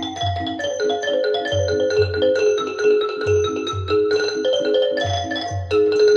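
Recorded music playing through Wilson Audio WATT/Puppy 7 loudspeakers: quick runs of struck pitched notes over a repeating deep bass beat.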